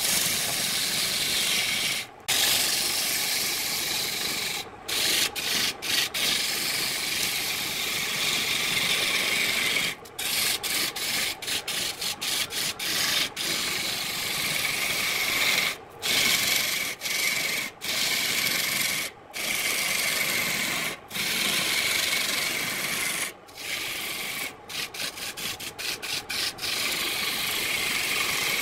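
Turning tool cutting into a wooden blank spinning on a wood lathe: a steady scraping hiss of shavings tearing off. It is broken by many brief drop-outs, in quick runs now and then.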